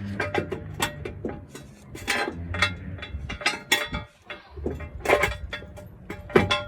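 Irregular metallic clicks and clanks of a steel jack stand and floor jack being handled and adjusted under a truck, over a low steady hum.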